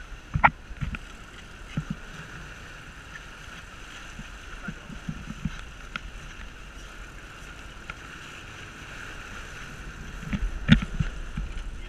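Sportfishing boat's engine running steadily over an even wash of water along the hull, with a few sharp clicks and knocks; the loudest cluster of knocks comes near the end.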